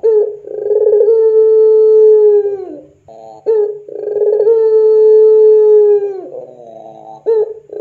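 Puter pelung dove (a Barbary dove bred for long-drawn coos) cooing. Two long drawn-out coos, each about two seconds, held level and then sliding down at the end, with short clipped notes between them.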